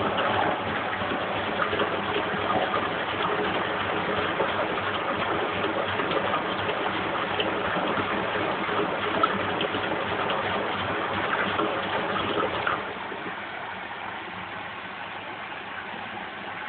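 Lynx 4TS-710A washing machine on its final rinse, run empty: a steady rush of water through the machine until about thirteen seconds in, when it drops to a quieter steady motor hum.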